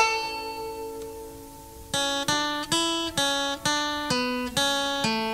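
Background music on acoustic guitar: one chord struck and left to ring for about two seconds, then a steady run of strummed chords about two a second.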